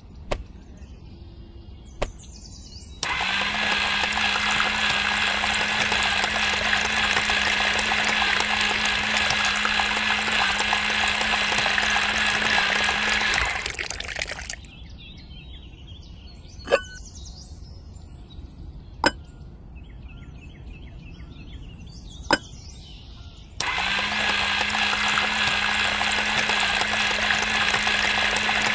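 Small DC motor of a miniature homemade juicer running with a steady hum and hiss as it grinds carrots into juice. It starts about three seconds in, stops about ten seconds later, and starts again near the end, with a few sharp clicks in the gap.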